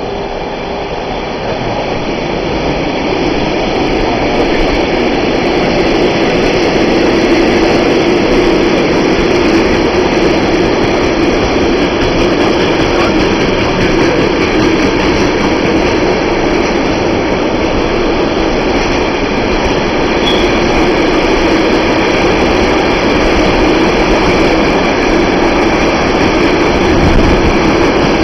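Container freight train rolling past on the rails: a steady rumble of the wagons running over the track, growing louder over the first several seconds and then holding steady.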